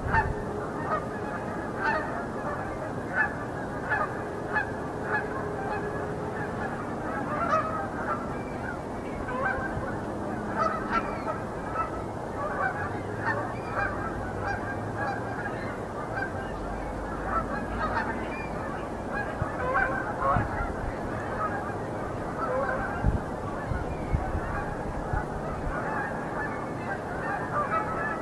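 A flock of Canada geese honking, many short calls overlapping without a break.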